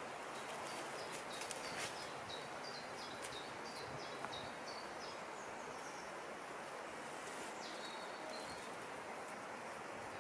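Small songbird singing phrases of quick high chirps that step down in pitch, twice, over a steady outdoor rush, with a few faint clicks.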